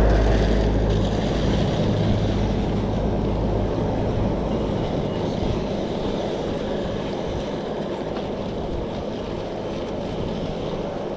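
Steady wind and road rush while riding a bicycle, with a low motor hum that fades out about four seconds in.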